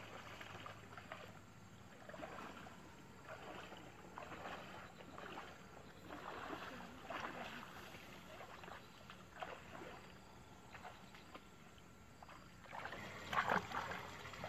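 Water sloshing and swishing as people wade through shallow muddy water, in soft intermittent bursts, with louder splashing near the end.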